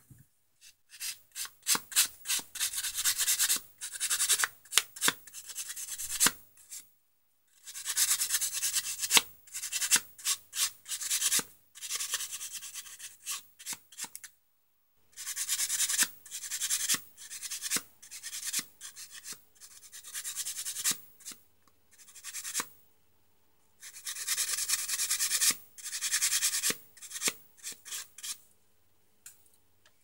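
Repeated scraping and rubbing strokes, in runs of several seconds with short pauses, as the rusted, oxidised carbon brush and brush holder of a vacuum cleaner motor are cleaned.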